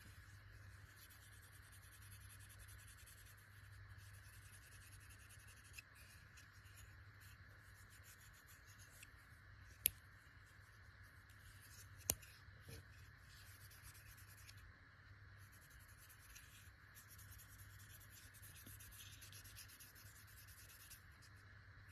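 Faint rubbing of Never Dull polishing wadding wiped over a small pocket knife to loosen corrosion, with two sharp clicks about ten and twelve seconds in.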